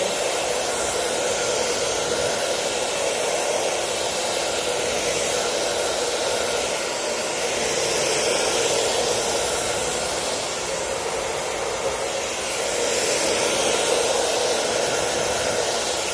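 Handheld hair dryer running steadily, blowing air to dry a fresh coat of varnish on a painted vase. Its rush of air rises and falls slightly twice, about halfway through and again near the end.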